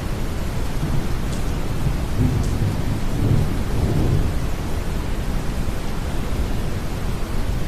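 Deep brown noise mixed with steady rain, with a low rumble of distant thunder swelling and fading about two to four seconds in.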